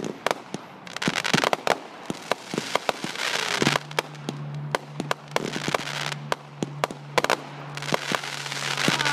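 Consumer aerial fireworks going off in quick succession: many sharp reports from launches and bursting shells, with stretches of crackle between them. A low steady hum comes in about a third of the way through.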